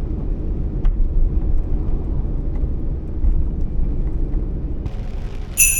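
Steady low road and engine rumble heard inside the cabin of a Nissan Kix kei SUV while driving, with a few faint ticks. Near the end a high hiss rises and a bright, ringing chime-like tone cuts in.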